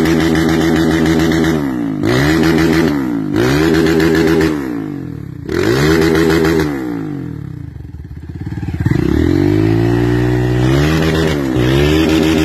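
Dirt bike engine revving, its pitch dropping and climbing back again every second or two. Near the middle the revs fall lower for a moment before picking up again.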